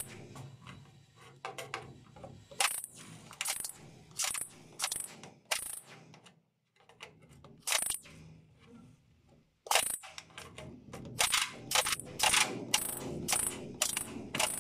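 Pneumatic air hammer with a chisel bit fired in short bursts against the riveted aluminium stem strip of a Kazanka 5M4 boat, chiselling it off. The bursts come in irregular clusters, with a pause of about a second in the middle and a quick run of bursts near the end.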